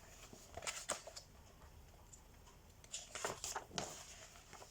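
A few faint rustles and taps in a quiet room: a cluster about a second in and another about three seconds in.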